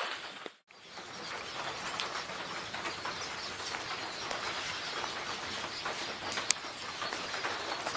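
Steady outdoor background noise with faint bird chirps, and a single sharp click about six and a half seconds in.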